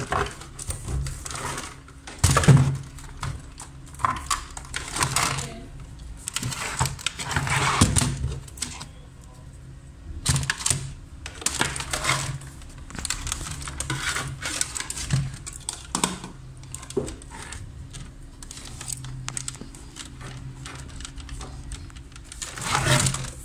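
Irregular clicks, knocks and rattles of computer cables and plugs being handled and plugged into the back of a monitor on a wooden desk, over a faint steady hum.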